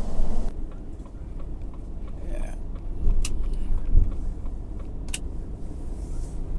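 Lorry engine and road rumble heard from inside the cab while driving, steady and low. A couple of sharp clicks and a low thump cut through it partway along.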